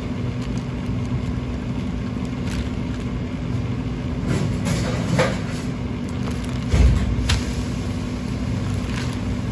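Steady low hum of kitchen equipment. Over it come soft scrapes and clicks of a metal spoon scraping tuna meat off the sinew on a plastic sheet, with a dull thump about two-thirds of the way through.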